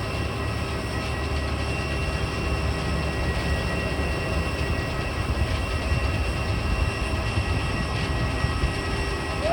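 Airbus A320 jet engines running steadily at low power: a continuous low rumble with a thin, steady whine above it.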